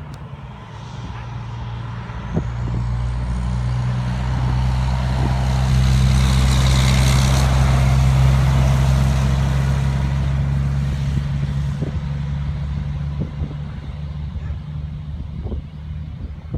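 Heavy diesel truck driving past, a low engine drone and road noise that grow louder to a peak about halfway through and then fade away.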